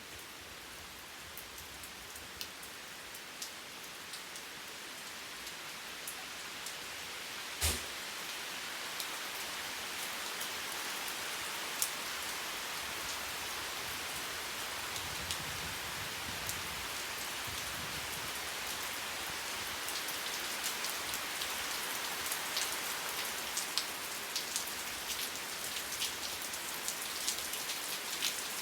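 Steady rain falling, with many individual drops ticking sharply through the hiss and one louder knock about eight seconds in. The rain grows a little louder over the first several seconds.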